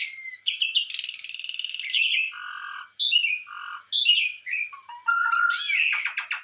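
A bird calling in a varied string of notes: a falling whistle, a buzzy rasping note, short chirps, and a rapid chattering series near the end.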